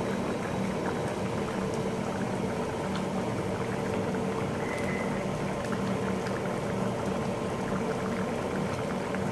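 Pumpkin curry bubbling in a wok on a gas stove, simmering in its added water as it cooks down to thicken. A steady low hum runs underneath.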